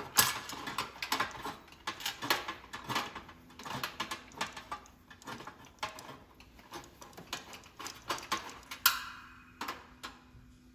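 Screwdriver turned by hand, backing screws out of a sheet-metal heater frame: irregular clicks, taps and light metallic clinks, with a short scrape near the end.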